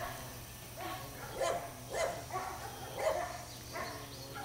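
A dog barking in a run of short barks, roughly one every half second.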